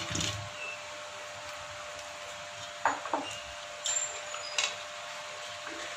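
Low steady hum, with two soft knocks about three seconds in and a couple of small ticks a second later, as cooked chicken pieces are handled in a steel cooking pot.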